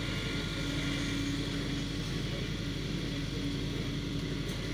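Fire engine running steadily: a low, even engine hum with a constant tone.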